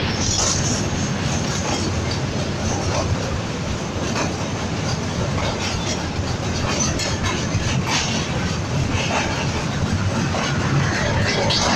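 Train running across a steel truss railway bridge, heard from alongside the carriage: a steady rumble of wheels on the rails with frequent irregular clacks and rattles.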